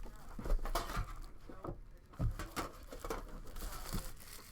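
Trading card box packaging being handled and opened: crinkling and tearing of plastic wrap with a few light knocks and clicks of cardboard.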